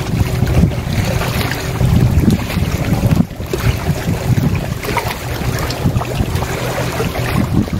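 Wind buffeting the microphone, with a steady low engine-like hum underneath that dips briefly about three seconds in.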